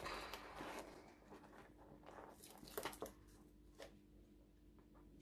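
Faint rustling of servo-lead wires and a few light clicks of their small plastic plug connectors being handled. The clearest clicks come about three seconds in.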